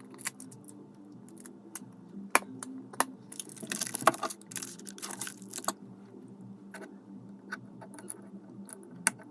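Small plastic Lego pieces clicking and clattering as they are handled and fitted together: scattered sharp clicks, busier for a couple of seconds around the middle.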